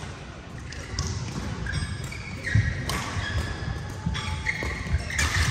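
Badminton doubles rally on an indoor court: court shoes squeak briefly on the floor several times, feet thud, and sharp clicks come from rackets striking the shuttlecock.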